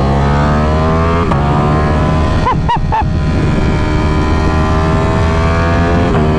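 Ducati Streetfighter V4 Lamborghini's V4 engine through a Termignoni titanium exhaust, accelerating hard with rising revs and upshifting about a second in and again near the end. A short run of sharp exhaust cracks sounds partway through.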